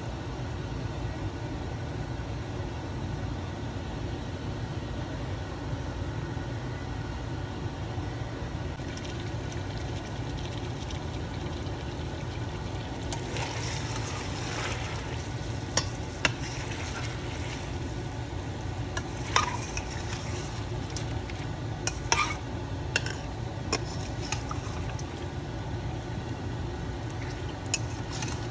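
Pork belly cubes sizzling in their rendered fat and reduced sauce in a stainless steel pot, a sign that the braising liquid has cooked down and the meat is now frying. From about halfway a metal spoon stirs them, with several sharp clinks and scrapes against the pot, over a steady low hum.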